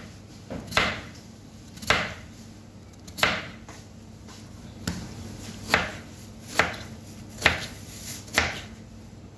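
Grooved crinkle-cut knife slicing a raw potato into rounds on a plastic cutting board. Each cut ends in a knock on the board, about eight cuts roughly a second apart.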